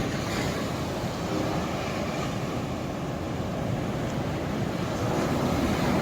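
Ocean surf: a steady wash of waves with a deep rumble underneath.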